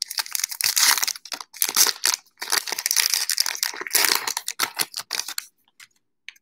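Wrapper of a 2019 Topps Heritage trading-card pack crinkling and tearing as it is pulled open by hand, with a stream of fine crackles that stops about five and a half seconds in.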